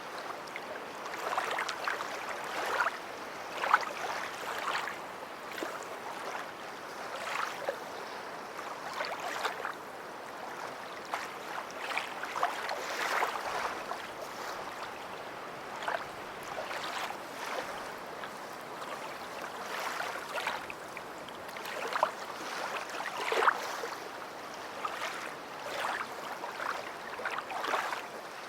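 Small waves lapping and washing on a beach: a continuous watery wash broken by frequent, irregular short splashes.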